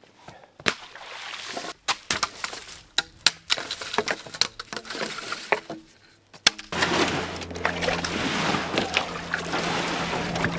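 Scattered knocks and clunks of a John boat being handled through a dried-up creek. About seven seconds in, a small boat motor starts running with a steady low hum and a noisy wash over it.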